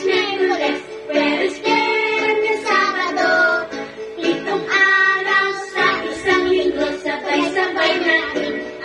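Music: a child's voice singing a song over sustained instrumental accompaniment.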